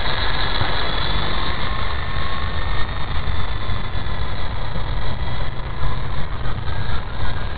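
Wltoys V913 RC helicopter's electric motor and rotor whining steadily in flight, with wind buffeting the microphone.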